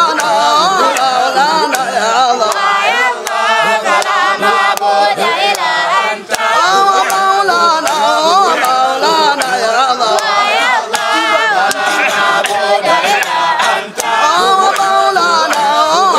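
A group of men chanting a Sufi dhikr together in a wavering melody, with sharp percussive beats throughout.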